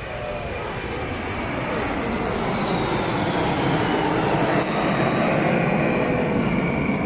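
Display aircraft engines flying past during an aerobatic air show. The sound grows steadily louder while its tones slowly fall in pitch, as the aircraft approach and pass.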